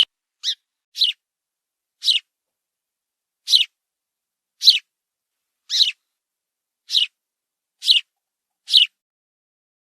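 Sparrow chirping: about ten short, single chirps, roughly one a second at an uneven pace, with nothing heard between them.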